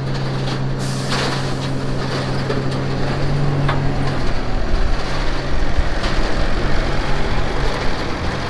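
Diesel engine of a new Versatile 365 tractor running steadily as the tractor drives down off a lowboy trailer, with a few sharp clanks in the first half. It grows louder in the second half as it comes close.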